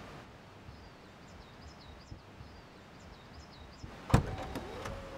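Faint birdsong over quiet outdoor ambience, then about four seconds in a sharp clunk as the Škoda Superb Combi's tailgate latch releases, followed by a few clicks and the steady hum of the electric tailgate motor beginning to lift the tailgate.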